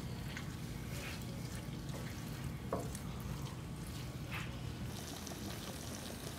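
Wooden spoon stirring thick chicken pot pie filling in a cast-iron skillet: wet sloshing with a few short scrapes against the pan, over a steady low hum.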